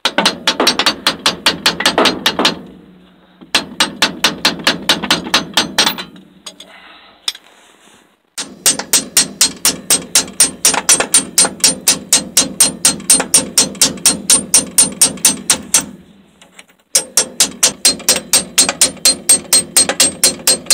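Steel hammer rapidly tapping a bolt used as a drift, about five strikes a second in four runs with short pauses, driving out the pin that holds a John Deere 7020 tractor's shift lever.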